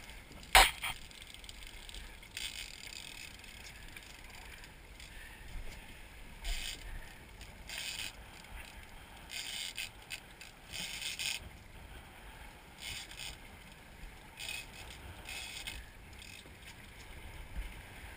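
Sea water slapping and splashing against the stern of a fishing boat in short hissing bursts every second or two, over a low steady rumble. A single sharp knock sounds about half a second in.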